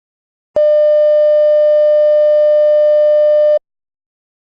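A single steady, buzzy electronic alert tone at one mid pitch, about three seconds long. It starts about half a second in and cuts off sharply. It serves as a stand-by signal before a broadcast message in a mock emergency alert.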